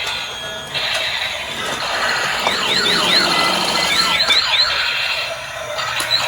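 Several battery-operated toy trains running at once, playing tinny electronic sound effects and tunes through their small speakers, with a run of quick, repeated sliding siren-like tones in the middle.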